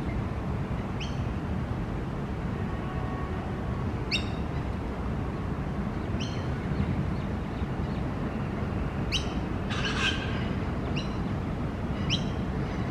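Young Australian magpie giving short, sharp chirps, one every second or two, with one longer, rougher call about ten seconds in. A steady low rumble runs underneath.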